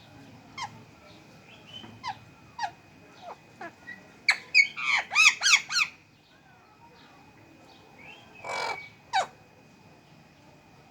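Pet parrot squawking: scattered short sharp calls, then a loud rapid run of about six calls, followed later by a longer harsh squawk and one more sharp call.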